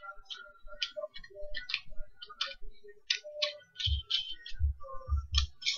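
Small metal parts of a vape mod clicking and clinking together as they are handled and fitted by hand, with a few dull thumps in the second half.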